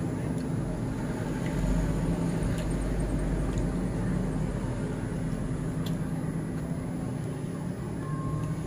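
Steady low mechanical rumble, a little louder from about two to five seconds in, with a few faint clicks.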